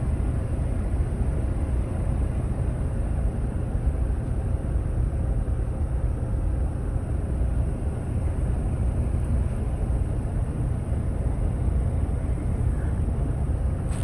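Trane packaged heat pump running: a steady low rumble and hum from its compressor and outdoor fan.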